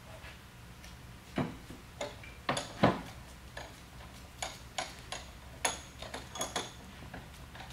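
Sharp metal knocks and clinks as a pallet jack hydraulic pump unit is flipped over by hand and set down on a metal work cart. The loudest knock comes about three seconds in, then a quicker run of lighter clicks with a ringing metallic edge.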